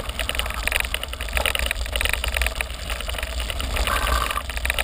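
Mountain bike rolling over a gravel road: tyres crunching on loose stones and the bike rattling, with wind rumbling on the microphone. There is a brief squeak about four seconds in.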